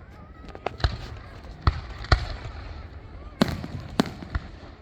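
Fireworks bursting overhead: about seven sharp booms and cracks at irregular intervals, with people talking in the background.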